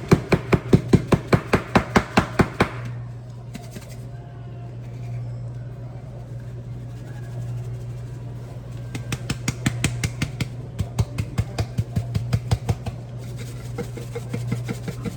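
A quick run of sharp taps, about six a second, in two spells, as a container of caked brown gravy mix is knocked and shaken to get the clumped powder out.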